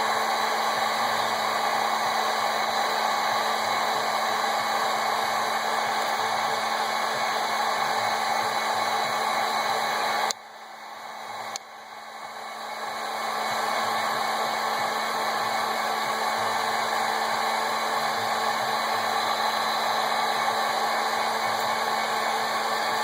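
Electric heat gun blowing steadily with a hum, shrinking heat-shrink tubing over a crimped battery-cable lug. About ten seconds in it cuts out, then comes back and builds up to full over a few seconds.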